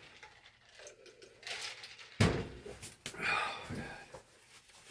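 Work on old HVAC return ductwork: a sharp knock about two seconds in, among smaller knocks, then a short stretch of scraping and rustling.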